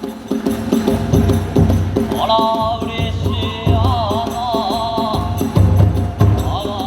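Live kagura accompaniment: drum strokes and clashing hand cymbals in a steady, driving rhythm. A high, wavering melody line enters about two seconds in and drops out around five seconds.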